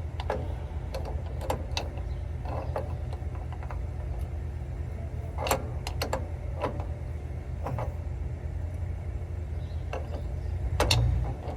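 Scattered metal clicks and clinks of hand tools on a car's front wheel hub as the spindle nut over the wheel bearing is tightened, over a steady low rumble.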